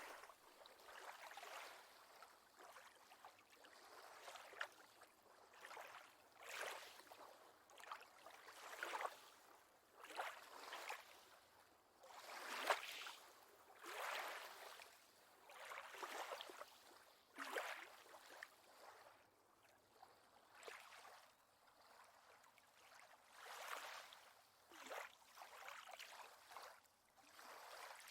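Faint lake water lapping, with small gentle washes that swell and fade every second or two.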